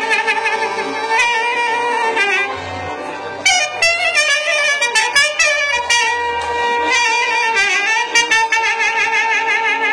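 Taragot leading a Banat folk tune, held notes with a wide vibrato at the start and end and fast ornamented runs in the middle, over double bass and accordion accompaniment.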